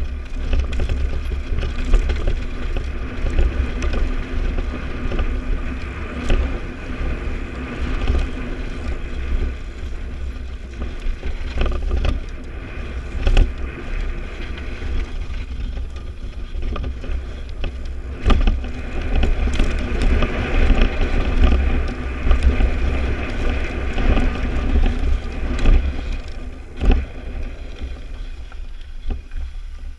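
Downhill mountain bike descending a rocky dirt trail: tyres crunching over stones and gravel, with frequent sharp knocks and rattles as the bike hits bumps. Heavy wind rumble on the microphone.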